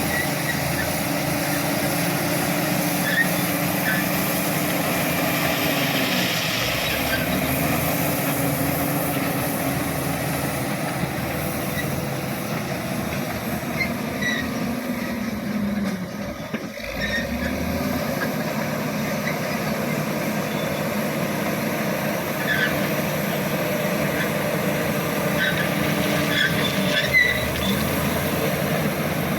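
Shantui SD16E bulldozer's diesel engine running steadily under work. Its note dips and picks up again a couple of times, most clearly about halfway through, with scattered short high squeaks over it.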